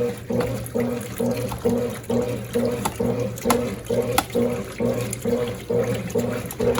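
Mondial BLK20 washing machine running with water in the basket: a steady motor hum under a rhythmic churning pulse, a little more than twice a second, with water sloshing.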